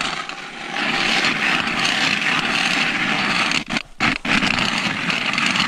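Hand-crank ice auger cutting into lake ice: a steady scraping grind of the blades shaving the ice, breaking off briefly near four seconds in.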